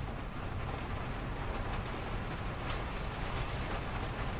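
Steady rain on a window over a constant low rumble of freeway traffic. A single sharp tick comes about two and a half seconds in.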